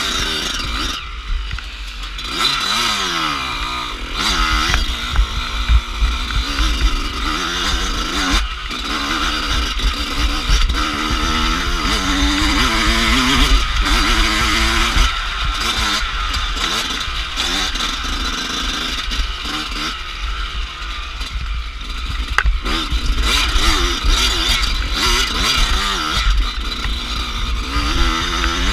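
Dirt bike engine running hard, its revs rising and falling again and again as the rider accelerates and backs off, with a steady deep wind rumble on the camera's microphone.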